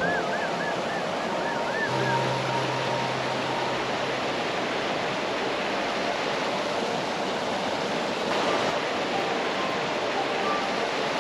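Waterfall: a steady rush of falling water. A few faint musical notes sit over it, with a wavering tone near the start.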